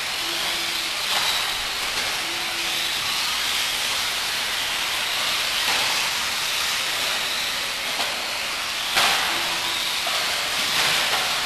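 Several electric RC off-road buggies racing together: a steady high hiss of small motors, gears and tyres on the track surface, with a brief knock about nine seconds in.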